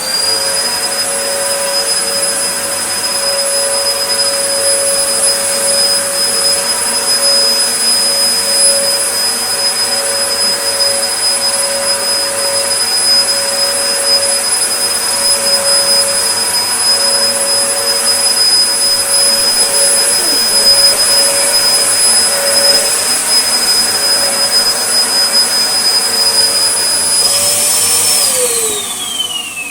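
1998 Dyson DC01 upright vacuum cleaner running steadily with a high whine, louder than usual because it has no filters fitted. Near the end it is switched off and the motor winds down with a falling whine.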